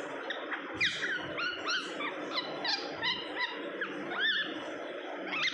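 Two-and-a-half-month-old pet parrot chattering: a run of short chirps, each rising and falling in pitch, about three a second.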